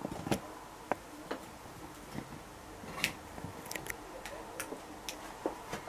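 Scattered light clicks and taps, irregularly spaced, from handling and opening a cardboard dishwasher box.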